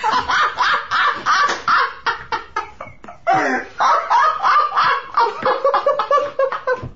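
Hearty, high-pitched laughter in quick pulses, in two long fits with a short break about three seconds in.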